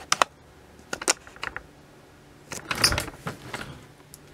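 Small plastic toy figures clicking and knocking together as they are handled and posed, a scatter of light clicks with a louder knock about three seconds in.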